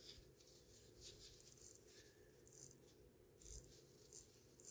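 Near silence with several faint, irregular scratchy clicks as fingers handle and turn the open case of a vintage Gruen wristwatch.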